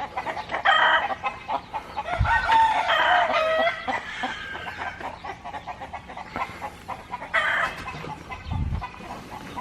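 A flock of chickens clucking and squawking, excited around feeding and watering, with a longer drawn-out call a few seconds in. A couple of low bumps are heard between the calls.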